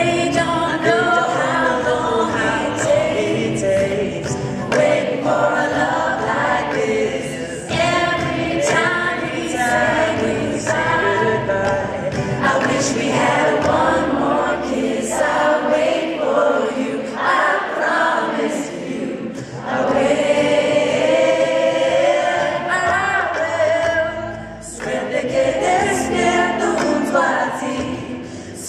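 Live pop-rock performance: a man and several women singing together in close harmony, with acoustic guitar, cello and upright bass accompanying.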